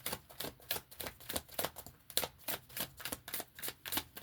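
A deck of oracle cards being shuffled by hand: a quick, uneven run of papery flicks and slaps, about five a second.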